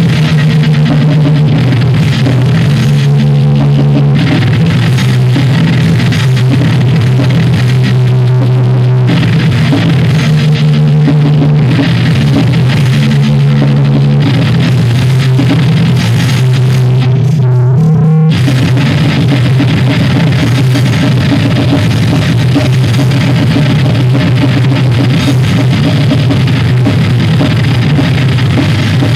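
Live thrash metal band playing loudly: distorted electric guitar, electric bass and drum kit. About 18 seconds in there is a wavering, rising slide in pitch, then a split-second stop before the band comes back in.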